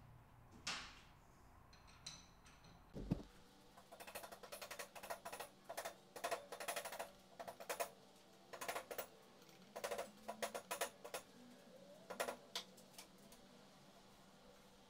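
Hand tools on a Honda CBX six-cylinder engine block: a single knock about three seconds in, then irregular clusters of light metallic clicks and clinks, as a wrench turns the crankshaft with the cylinders newly fitted over the pistons.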